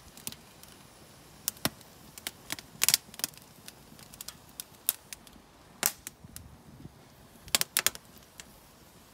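Ash logs burning in the grill's steel ember basket and crackling, with irregular sharp pops and snaps. A few come in quick succession about three seconds in and again near the end.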